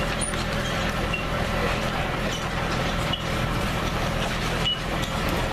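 A vehicle engine running steadily as it hauls an open safari tour wagon, heard from aboard the wagon as a continuous low hum.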